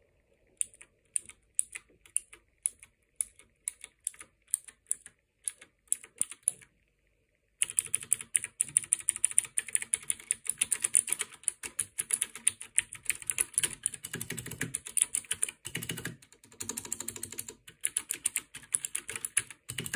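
Acer Predator TKL 301 mechanical keyboard with clicky blue switches being typed on: separate single keystrokes for the first six or seven seconds, then after a brief pause fast continuous typing.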